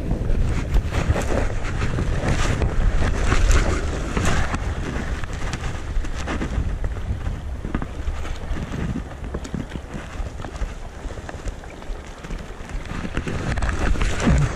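Wind buffeting the microphone in a heavy low rumble, with the sea washing against the rocks and scattered short clicks and knocks.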